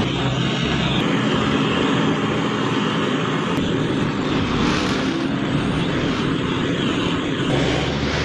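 A steady, loud mechanical roar with a low hum under it, running without a break.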